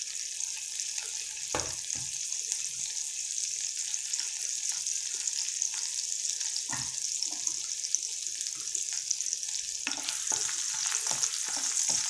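Chopped garlic sizzling in hot oil in a wok, a steady hiss, with a couple of single light knocks. About ten seconds in, a wooden spatula starts stirring, with quick repeated taps and scrapes against the pan.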